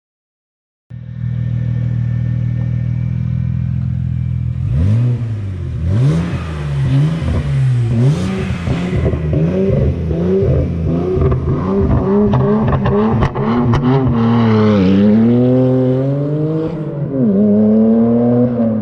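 BMW 335xi's N54 twin-turbo inline-six idling steadily, then revved over and over, its pitch rising and falling about once a second before a few longer climbs in pitch near the end, with a scatter of sharp crackles in the middle.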